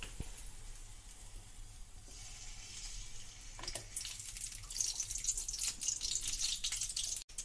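Cooking oil pouring in a thin stream from a bottle into an iron kadhai, a trickling hiss that builds a couple of seconds in and is strongest near the end.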